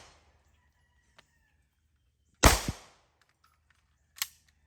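A single shot from a Desert Eagle .50AE pistol firing a 300-grain round, about halfway through: a loud crack with a short echoing tail. A short, sharp click follows near the end.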